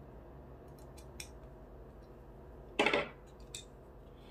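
Light clicks, then a short rasping clatter about three seconds in, from a screwdriver working the screw on a small plastic inline toggle switch as its cover is undone.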